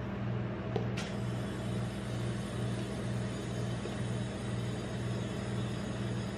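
Steady low hum of the rolled-ice-cream cold plate's refrigeration unit, pulsing evenly. A single light metal tap of the spatula comes about a second in.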